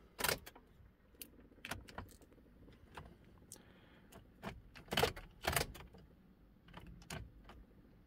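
Ignition key and keyring clicking and rattling in a Ford Transit Mk7's ignition lock as the key is worked, in a string of sharp clicks with the loudest two about five seconds in. The engine does not crank, because the faulty ignition switch stays locked in the ignition position and will not turn to start.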